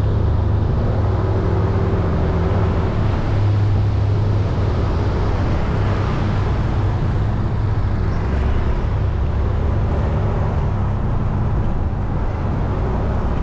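Motorcycle engine running steadily at road speed, with road and wind noise on the microphone and a few small shifts in engine pitch.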